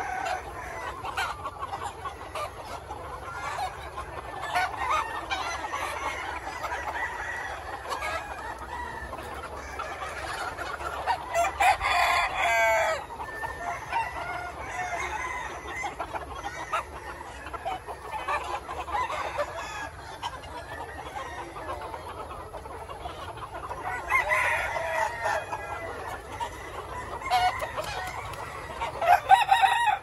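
A large flock of chickens clucking and chattering without a break, with roosters crowing over it several times, loudest about twelve seconds in and near the end.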